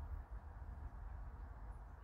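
Quiet room tone: a steady low hum with faint hiss, no distinct event.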